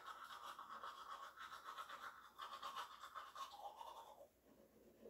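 Faint toothbrush scrubbing teeth in quick, scratchy back-and-forth strokes, easing off briefly about four seconds in.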